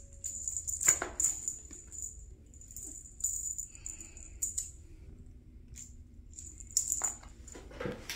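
A kitten's rattle or jingle toy being batted and skittering across a hard floor: short, irregular bursts of jingling, with a couple of sharper knocks about a second in and near the end.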